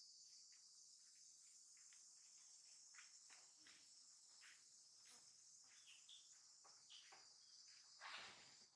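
Faint, steady, high-pitched chorus of insects, with scattered faint ticks and a brief louder rush of noise near the end.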